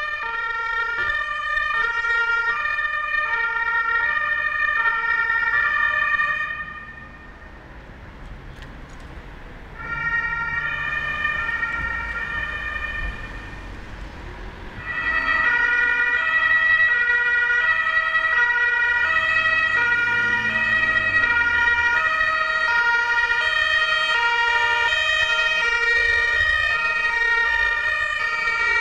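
German two-tone emergency sirens (Martinshorn) on ambulances, evenly alternating between a high and a low pitch. One siren fades out about seven seconds in, a fainter one sounds from about ten seconds, and a louder one takes over from about fifteen seconds on.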